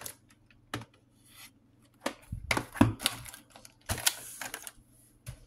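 Plastic VHS tapes and cases being handled and set down: scattered sharp clicks and knocks, bunched together in the middle.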